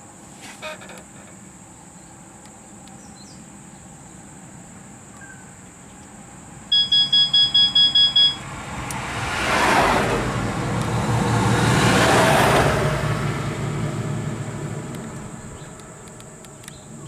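A motor vehicle passes, its noise swelling and fading over several seconds, just after a quick run of about eight high electronic beeps. A steady high insect whine, like cicadas or crickets, runs underneath.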